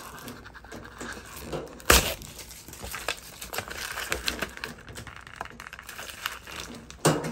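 Protective plastic wrapping being peeled and crumpled off a new laundry appliance, crinkling and tearing, with a loud knock about two seconds in and another near the end.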